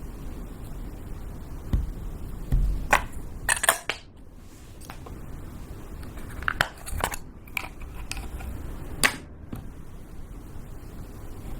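Slime being mixed and squeezed by hand, with scattered sticky pops and crackles. The pops come in clusters around the first few seconds and again in the middle.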